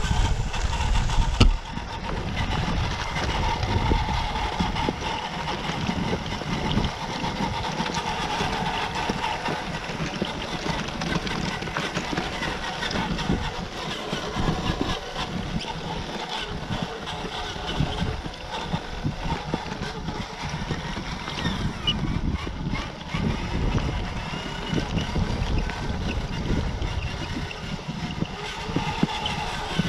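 Small electric RC crawler truck whining steadily as it tows a boat trailer over dirt and grass, over a fluctuating low rumble of wind on the microphone.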